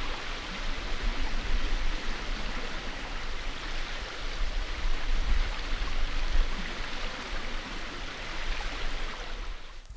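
Fast-flowing river rushing, a steady broad hiss of moving water, fading out near the end.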